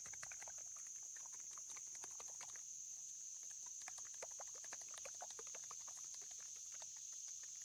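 Plastic zip-top bag with a raw egg inside being sealed and handled, giving rapid crinkling and clicking in two spells. A steady high chirring of crickets runs underneath.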